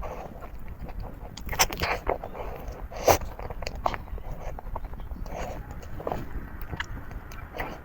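Mouth sounds of a person biting and chewing a creamy crepe roll cake, with irregular short clicks and smacks. The loudest come about one and a half to two seconds in and about three seconds in.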